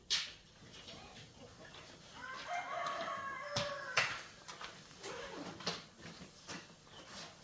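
A rooster crows once, a call of about a second and a half starting a little after two seconds in, among scattered sharp clicks and knocks.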